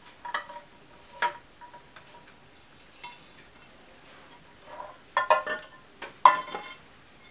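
Hard knocks and clinks of pump and filter parts against a glazed ceramic fountain bowl as they are fitted inside, each knock leaving a short ringing tone from the ceramic. Two single knocks come early, then a busier run of clinks near the end.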